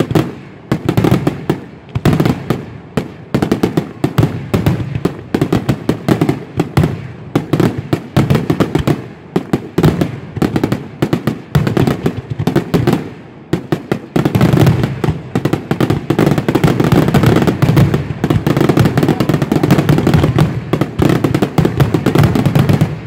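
Fireworks display: aerial shells bursting in rapid succession, the bangs coming thick and fast. About two-thirds of the way in they merge into an almost continuous barrage.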